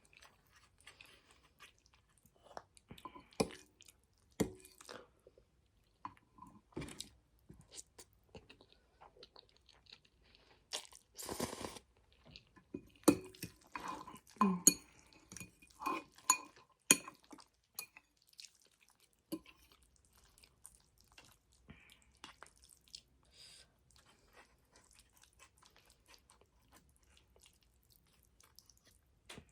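Close-up chewing and mouth sounds of someone eating saucy angel hair spaghetti: scattered wet clicks and smacks, busier and louder from about eleven to seventeen seconds in, with one longer noisy sound about eleven seconds in.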